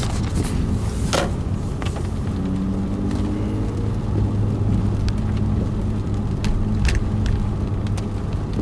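Car engine running low and steady, heard from inside the cabin, with a few short sharp clicks and knocks scattered through it.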